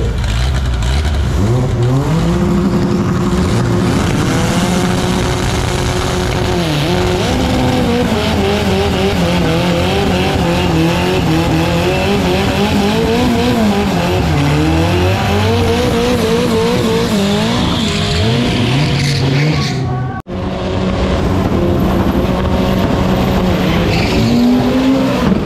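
Chevrolet Chevette drag car doing a burnout: the engine is revved hard, its pitch rising, falling and wavering, while the rear tyres squeal as they spin. After a sudden break about twenty seconds in, the engine holds steadier revs.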